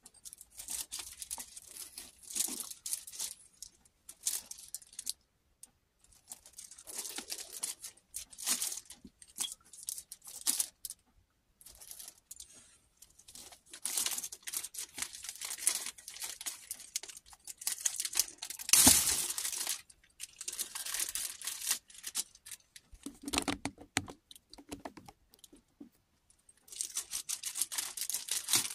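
Clear plastic packaging bag crinkling and tearing as it is handled and pulled open, in irregular bursts with short pauses; the loudest burst comes a little past halfway.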